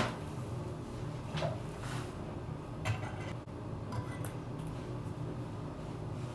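Light handling noises: a sharp click at the start, then a few brief rustles and taps, over a steady low hum.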